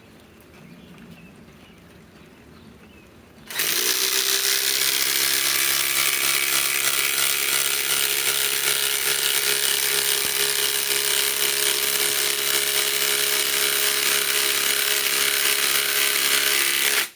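Kobalt XTR cordless impact driver hammering steadily as it drives a 6-inch lag screw into wood, starting about three and a half seconds in and running unbroken for about thirteen seconds before cutting off sharply.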